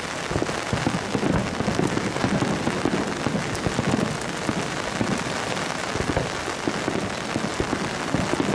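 Heavy downpour drumming on an umbrella over the microphone, a loud dense patter of drops.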